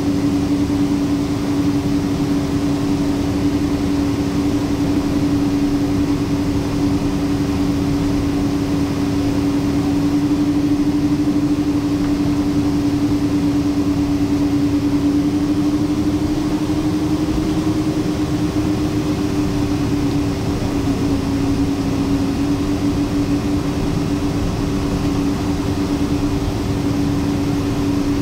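Cabin noise of a Boeing 777-200 taxiing, its Pratt & Whitney PW4000 turbofans at low taxi power. A steady drone carries a held hum that rises a little about two-thirds of the way through and settles back.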